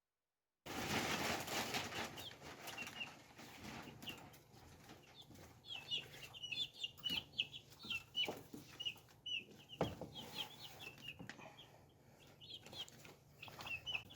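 Baby chicks in a brooder peeping over and over in short, quick, falling notes, while the brooder's bedding is scooped out with rustling and scraping, loudest near the start. A single sharp knock comes about ten seconds in.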